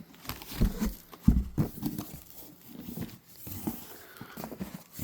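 A firework cake being handled and unpacked: rustling of its wrapping and cardboard, with several dull knocks in the first two seconds.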